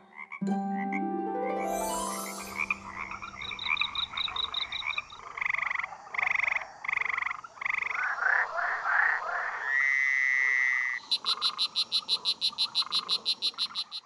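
Frogs calling: a series of different calls one after another, with croaks repeated a couple of times a second through the middle, then a fast, even trill of about eight pulses a second near the end.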